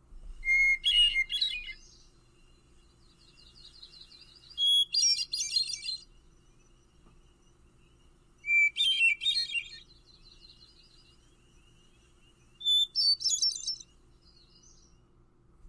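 Hermit thrush singing: four separate song phrases a few seconds apart, each opening with one clear held note and going on into a quick fluty flourish, the phrases alternating between a lower and a higher pitch.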